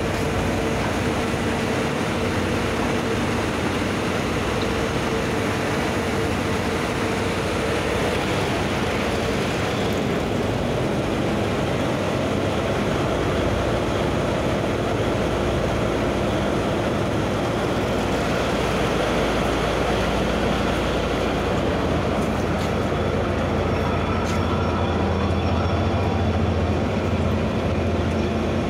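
Tugboat's diesel engine running steadily while towing a coal barge, heard on deck as a constant mechanical rumble with water noise; the low rumble grows stronger in the second half.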